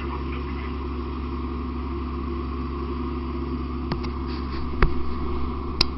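Fire engine running steadily with a low, even drone. Three sharp knocks, about a second apart, in the second half.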